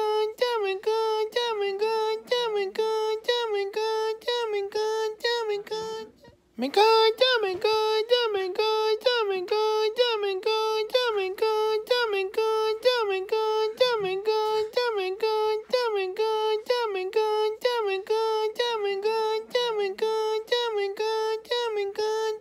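A high-pitched voice singing one short note over and over, about three times a second and at nearly the same pitch, with a brief pause like a breath about six seconds in.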